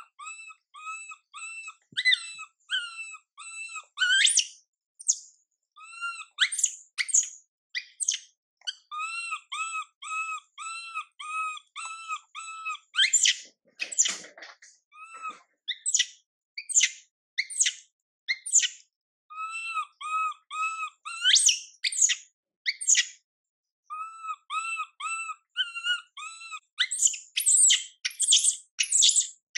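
Baby macaque crying: runs of short whimpering calls, about three a second, broken by shrill screams that come thicker and louder near the end.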